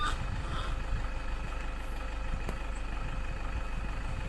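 A vehicle's engine idling steadily, with a faint click about two and a half seconds in.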